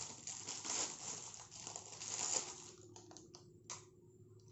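Thin plastic packaging crinkling as it is pulled off a small plastic phone clip, then a few light plastic clicks as the clip is fitted onto the head of a flexible gorilla tripod.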